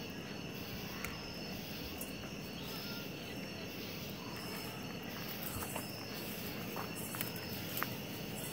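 Night insects chirping in a steady chorus, with a short high call repeating at an even pace. A few sharp clicks sound over it, the loudest near the end.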